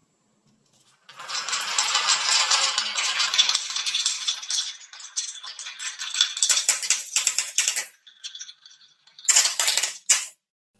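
Small balls rolling and rattling down the wavy grooves of a wooden marble run track, clacking against the wood and each other. The dense rattle starts about a second in and thins into scattered clicks. Near the end comes a short burst of louder clacks as balls land in a toy dump truck's bed.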